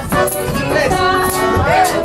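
Live Russian folk music from a small ensemble, with voices singing over the instruments.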